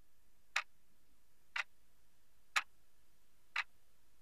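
Clock-tick sound effect counting down the time to answer, one short sharp tick a second, four ticks in all.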